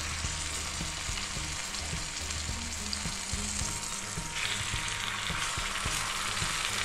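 Raw chicken breasts sizzling in hot grapeseed oil in a cast-iron skillet as they go in to sear, a steady frying hiss that grows brighter about four seconds in as the second breast is laid in. The immediate sizzle is the sign that the pan is hot enough to sear.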